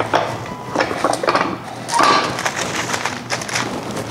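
Metal tortilla press being worked and opened, with the plate and handle knocking and parchment paper rustling as it is peeled back from the freshly pressed corn tortilla. The sound is an irregular run of clicks and rustles, loudest about two seconds in.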